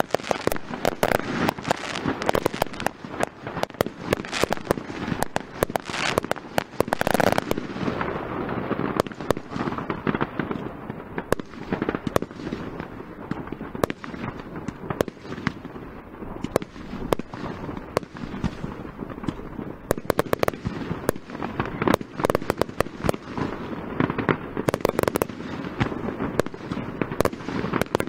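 Fireworks display: aerial shells bursting in a dense, unbroken run of sharp, overlapping bangs.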